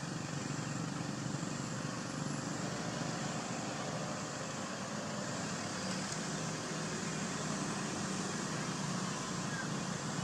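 Steady outdoor background noise: a low rumble under an even high hiss, with no calls from the monkeys.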